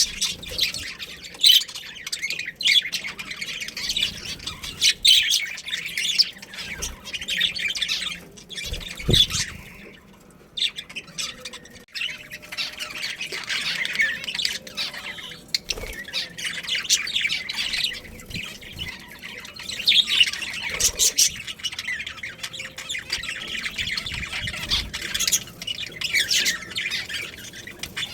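Budgerigars chattering and chirping, several birds at once in a rapid, continuous warble, with a short lull about ten seconds in. A few low knocks sound under the chatter.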